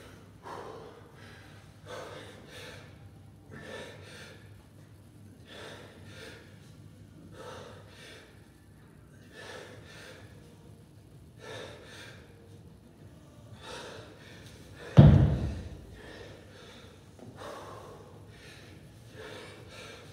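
A man breathing hard, with a loud exhale about every one and a half to two seconds, from the effort of one-arm kettlebell presses. A single heavy thud about fifteen seconds in is the loudest sound.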